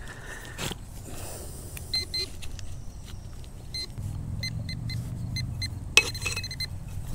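Metal detector giving short, high electronic beeps in clusters while homing in on a buried coin. A low rumble sets in about four seconds in, and a sharp knock comes about six seconds in.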